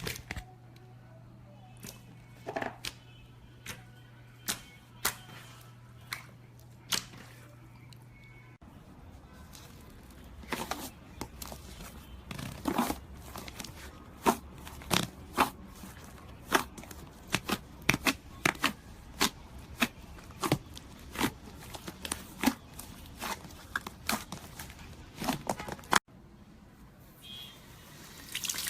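Slime being pressed and stretched by hand, making sharp pops and clicks. They come about once a second over a low hum at first, then faster, about two a second, after a change near nine seconds.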